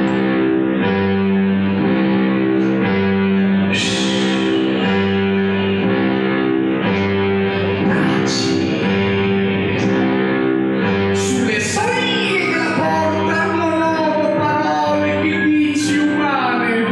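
Backing music: a sustained low chord that pulses about once a second. From about twelve seconds in, a man's voice sings a sliding line over it.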